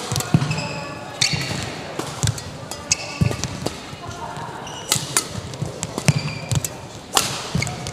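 Badminton rackets hitting a shuttlecock back and forth in a rally, sharp cracks every second or so, with players' shoes squeaking and thudding on the court floor between shots.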